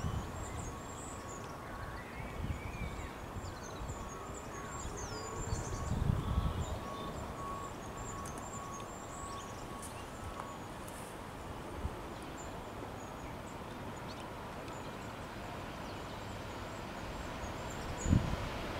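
Small birds chirping, with wind gusting on the microphone and a faint steady tone through the first half. A single knock comes near the end. A distant diesel freight train is approaching but is only faintly heard, growing a little louder at the very end.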